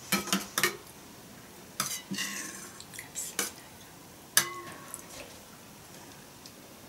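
Spoons clinking and scraping against soup bowls as two people eat: a scatter of light clinks, with one sharper, briefly ringing clink about four and a half seconds in.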